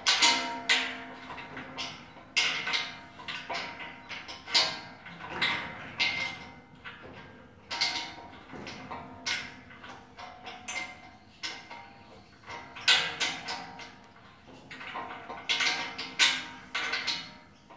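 An adjustable spanner clinking and knocking against a nylock nut and the steel sliding-door hanger as the nut is worked tight on its bolt. The metallic clinks come irregularly, about one a second, some with a short ring.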